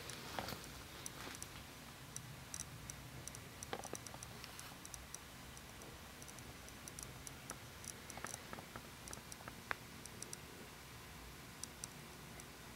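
Faint, irregular small clicks and ticks over a low steady hum from a wave machine's motorised rocking base as it tilts the liquid-filled acrylic tank back and forth.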